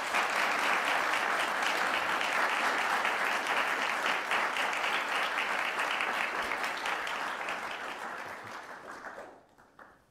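Studio audience applauding, a dense even clatter of many hands that tapers off and dies away near the end.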